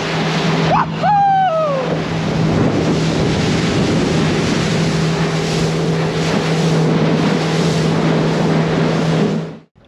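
Motorboat running at speed across calm water: a steady engine hum under the rush of water and wind buffeting the microphone. It cuts off abruptly near the end.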